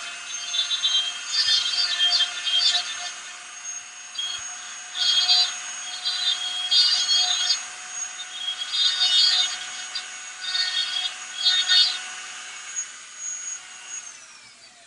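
Dremel rotary tool running with a steady high whine, grinding shallow arm sockets into a plastic figure in a string of short rough bursts. Near the end the whine drops in pitch as the tool spins down.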